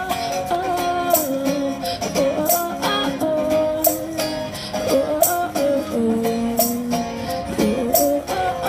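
A busker singing while strumming an acoustic guitar in a steady rhythm.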